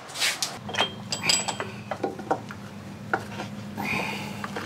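Hand wrench clinking and ticking on the carburetor mounting nuts of an Evinrude 15 hp outboard as the carburetor is unbolted: a string of light, irregular metallic clicks and taps, some briefly ringing.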